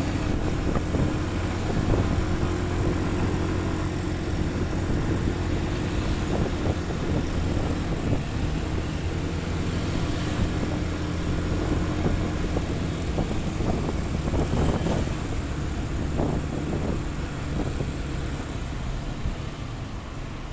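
Steady engine and road noise of a motor vehicle being driven, with a low engine hum that shifts in pitch about two-thirds of the way through.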